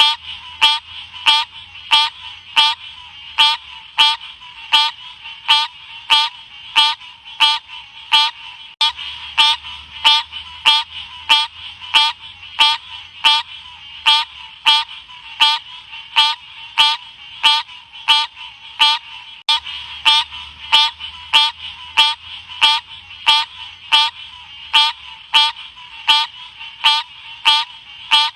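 Green odorous frog (Odorrana livida) calling: short, identical chirping calls repeated steadily about twice a second.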